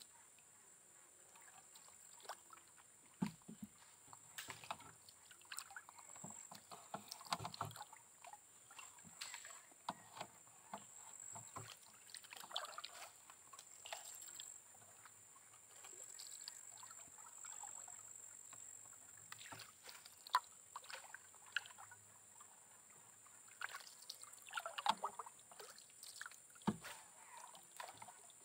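Faint, intermittent water sounds around a small boat on calm water: soft splashes, swishes and drips, over a steady high-pitched drone.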